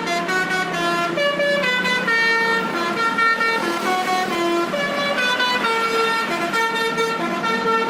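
Bus 'telolet' horn playing a tune: several air-horn notes stepping up and down, each held a fraction of a second, one after another without a break.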